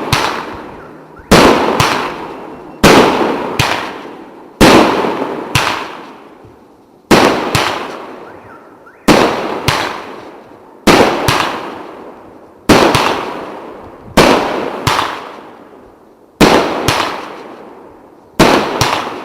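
Consumer fireworks battery (cake) firing shot after shot: about ten loud bangs, roughly one every two seconds, each dying away before the next.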